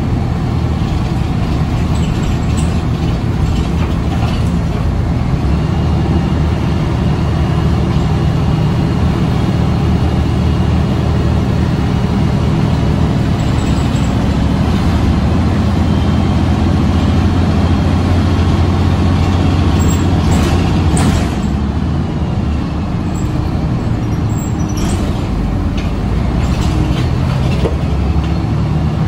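A 2013 Karsan Avancity S Plus articulated city bus on the move, heard from inside the passenger cabin: a noisy, steady, low engine and road drone. The drone eases a little about two-thirds of the way through, with a couple of short, sharp noises around then.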